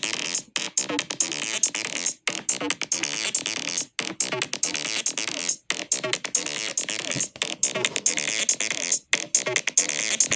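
Electronic synthesizer music with quick rhythmic notes, stopping dead for an instant several times.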